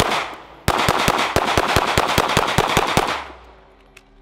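9mm Glock 19 pistol fired in rapid strings, several shots a second. There is a short break just after the start and a longer break of about a second near the end.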